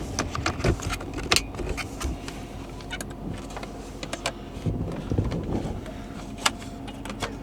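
Scattered sharp plastic clicks and rattles as electrical connectors are plugged back into a car's HVAC unit and the part is handled, over a steady low hum.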